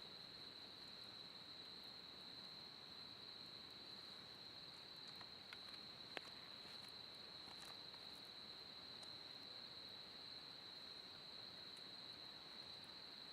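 Crickets trilling steadily in a high, unbroken chorus. Over it come a few faint crackles from a small wood fire, with one sharper pop about six seconds in.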